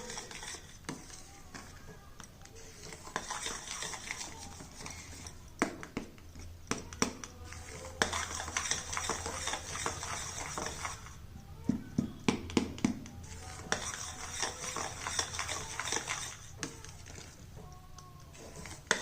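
Banana and jaggery mixture being stirred in a kadhai: a utensil scraping round the pan in long stretches, with frequent sharp clinks against the metal and short pauses between stretches.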